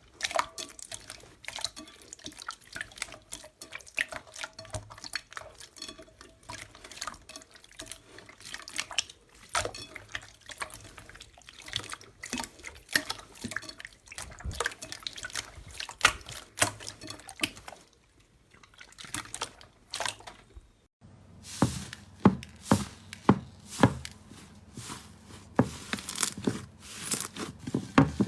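Slime being squished and poked by hand, a steady run of small wet clicks and pops. About 21 seconds in the sound changes to a series of louder, evenly spaced squelches.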